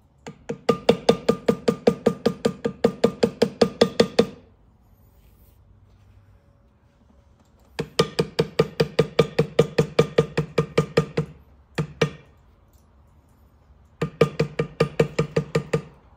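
Mallet tapping a leather-stamping shader tool into leather to shade a tooled design, in quick even strikes about five a second. Three runs of tapping with pauses between, and a brief pair of taps about twelve seconds in.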